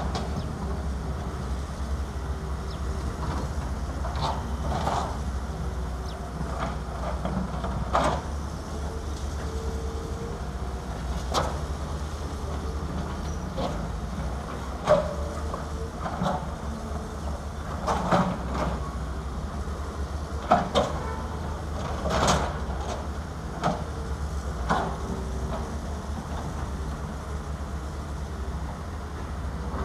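Diesel engine of a Caterpillar 320 crawler excavator running steadily as its bucket digs through rocky rubble, with sharp, irregular clanks and knocks of stone and concrete against the steel bucket.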